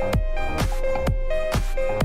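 Electronic dance music with a steady kick drum beat, about two beats a second, and a repeating synth note.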